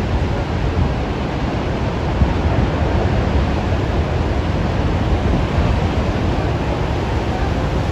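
Heavy ocean surf rushing steadily, mixed with wind buffeting the microphone in a low, fluttering rumble.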